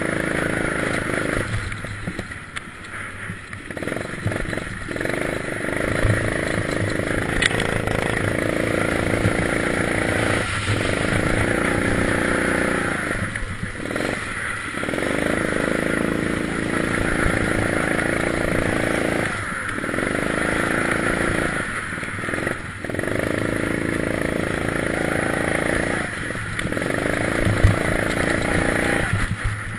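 Go-kart engine from the driver's seat, rising in pitch as it accelerates, then dropping away each time the throttle is lifted for a corner, about eight times, over a steady hiss.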